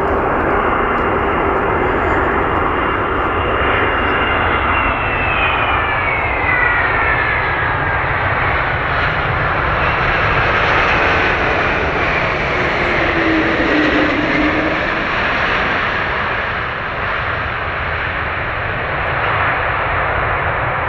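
Boeing 777-200ER's twin Pratt & Whitney PW4000 turbofans, loud and steady through the landing, with a high whine that falls in pitch about five to eight seconds in as the aircraft passes close by.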